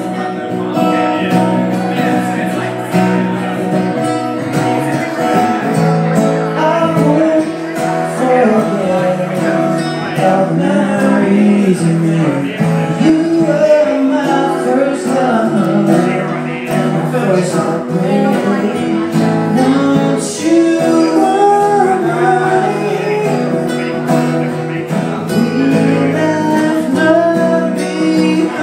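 Two acoustic guitars strummed together with a man singing over them, a live acoustic song.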